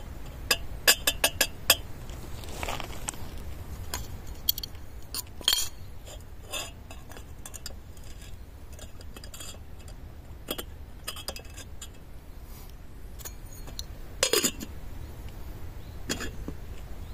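Metal camp cookware clinking and tapping: a quick run of about six light clinks near the start, then scattered single clinks and knocks, with a louder pair about fourteen seconds in.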